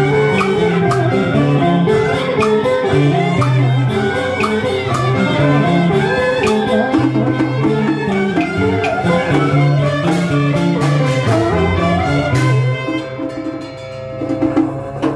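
Southern Vietnamese ritual-music (nhạc lễ) ensemble playing, with melody instruments over steady percussion clicks. About twelve and a half seconds in the music thins and gets quieter, leaving a held low tone under lighter playing.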